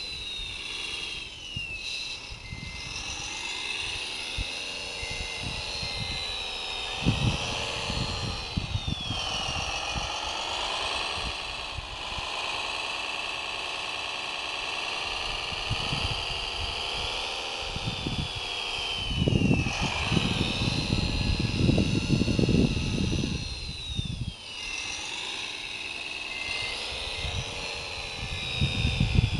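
Electric drive and gear whine of a 1/14-scale RC Komatsu WA470-6 wheel loader, rising and falling in pitch again and again as it drives and works its bucket. Gusts of wind rumble on the microphone a few times, the strongest about 20 seconds in.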